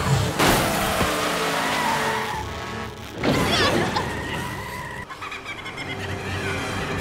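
Cartoon car-chase sound effects: a car engine surging and tyres skidding, in two loud rushes about half a second and three seconds in, over background score music.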